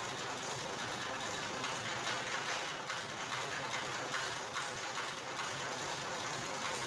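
Motorised sugarcane juice press running, its steel rollers and gears working on the canes fed into it, with a steady rattling clatter.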